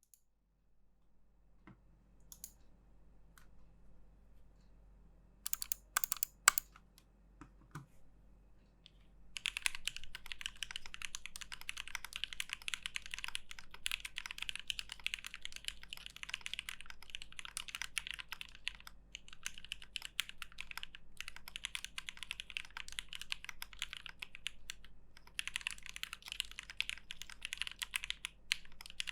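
Typing on an Alice-layout mechanical keyboard with an aluminium top-mount case, FR4 plate and JWK Dogikon switches. A few separate key clicks come first, then steady fast typing starts about nine seconds in, with a few short pauses.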